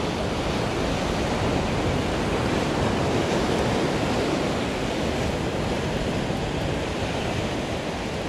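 Heavy sea surf breaking and washing white over the rocks below a cliff, a steady rush that swells a little partway through.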